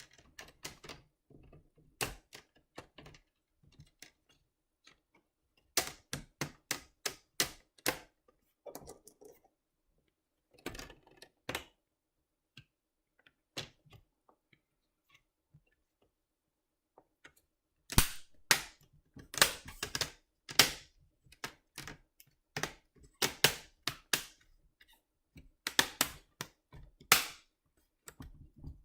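Plastic screen bezel of an HP 17-AK012NR laptop being pressed back on around the display, its clips snapping into place in clusters of sharp clicks with pauses between.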